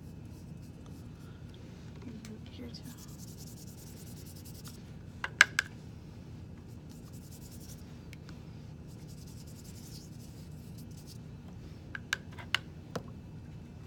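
Paintbrush rubbing and swishing over paper as paint is brushed on. There are a few sharp taps: three close together about five seconds in, the loudest sound, and four more near the end.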